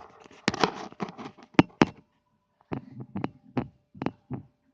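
A series of irregular knocks and thumps, bunched together in the first two seconds and then about six single strikes, with a faint steady hum underneath.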